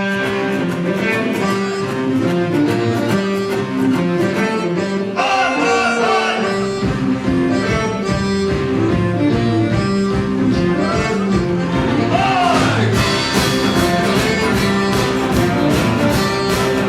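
A live band plays a song's instrumental intro with guitar and a sliding melodic lead. The drums and bass come in about seven seconds in.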